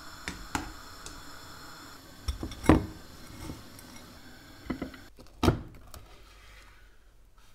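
A series of sharp knocks and clinks of kitchen utensils against pots and dishes. The loudest comes about three quarters of the way through, where a chef's knife cuts down through a crumb-coated dumpling onto a wooden cutting board.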